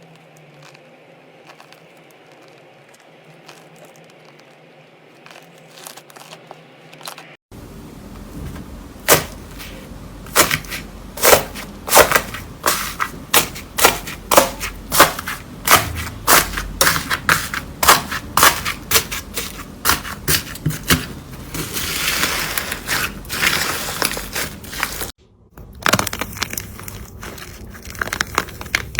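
Slime being pressed and squeezed by hand. Faint crackling at first, then loud sharp pops and crackles about twice a second, a denser crackling stretch, and after a sudden break more pops.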